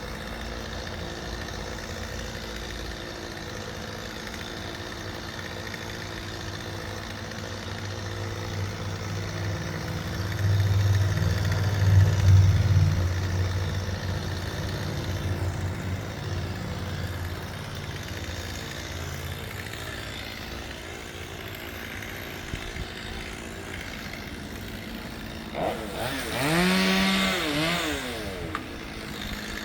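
Engine running steadily at a tree-trimming job. It swells to a louder low rumble about ten to fourteen seconds in. Near the end a brief whine rises and falls in pitch.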